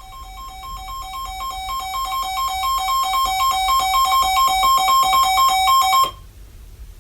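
Sangean weather radio's built-in alert alarm: rapid beeping alternating between two pitches, growing steadily louder, then cut off suddenly about six seconds in. It sounds as the radio picks up a new warning, here a flash flood warning.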